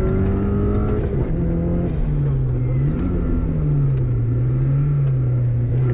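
Turbocharged Subaru Impreza flat-four engine under hard driving, heard from inside the car. The revs climb, drop about a second in, rise and fall again near three seconds, hold lower, then start climbing again near the end.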